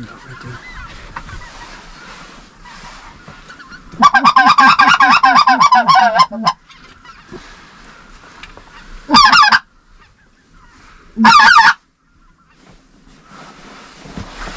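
A goose call blown hard in the blind: a long run of rapid, quavering clucks starting about four seconds in, then two short bursts. A flock of geese calls faintly in the background between them.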